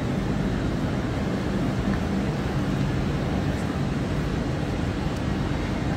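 Steady low rumble and hum of a mainline railway station under its glass roof, with trains idling at the platforms.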